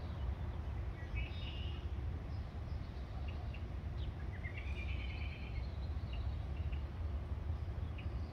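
Songbirds chirping, with two short bursts of rapid trilling calls, over a steady low background rumble.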